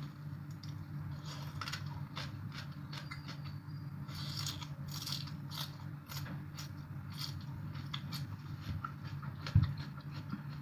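Close-up chewing of crunchy papaya salad: quick, irregular crunches and mouth clicks over a steady low hum, with one sharp knock near the end.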